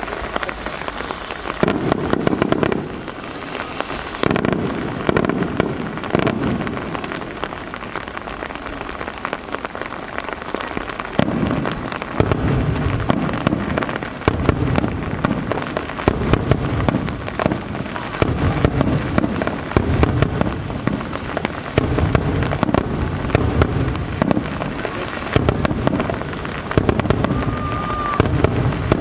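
Rain pattering steadily, with deep fireworks booms going off one after another every second or two.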